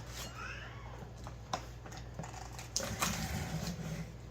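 A knife cutting into a cardboard shipping box and its packing tape: scraping, with a short squeaky wavering glide near the start and a few sharp clicks.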